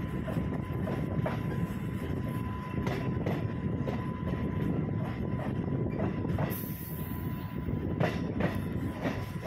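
A MEMU electric multiple-unit train running along the line: a steady low rumble, with wheels clacking over the rail joints roughly once a second, and a faint steady whine.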